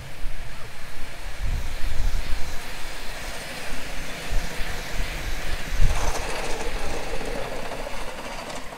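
Miniature passenger train hauled by a steam locomotive running past on a raised track, its wheels rumbling over the rails with several heavy low knocks.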